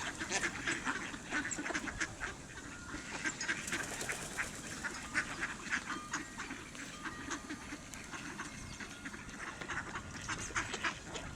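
A flock of mallard ducks feeding on bread, giving many short, soft quacks and clicks throughout.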